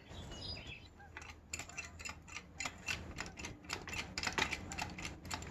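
Irregular light clicks and rattles, a few a second, from a hydraulic floor jack being handled and set in place under the mower's axle.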